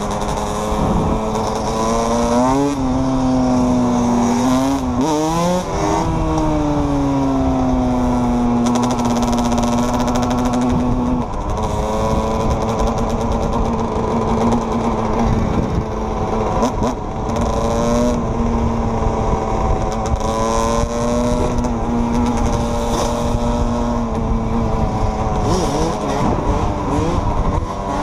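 Dirt bike engine heard from on board, revving with pitch rising and falling in the first few seconds as it accelerates through the gears, then holding a steady cruising note, with more revving near the end.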